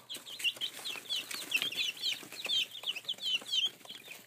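Four-week-old chicks peeping: many short, high chirps overlapping from several birds, a few each second, with scattered light clicks.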